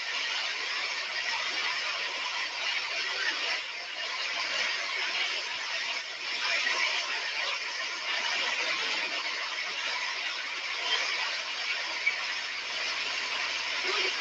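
Heavy rain falling steadily, a dense even hiss, with faint high squeals of children playing in it now and then.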